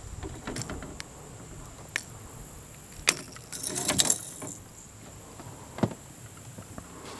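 Needle-nose pliers and a crankbait's treble hooks clicking and rattling against each other while being worked out of a largemouth bass's mouth. Scattered single clicks, with a short rattling run about four seconds in.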